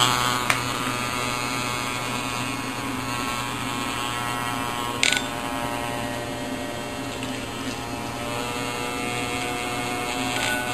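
A vibrator with a toothbrush taped to it, buzzing steadily with a low electric hum. A short sharp knock sounds about five seconds in.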